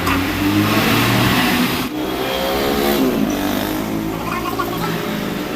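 An engine running and revving, its pitch rising and falling about halfway through.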